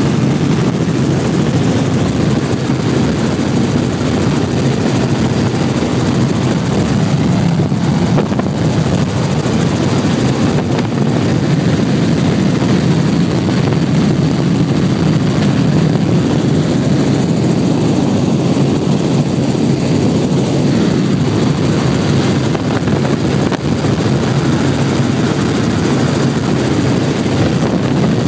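Steady drone of a small helicopter's engine and rotor, heard inside the cabin in flight.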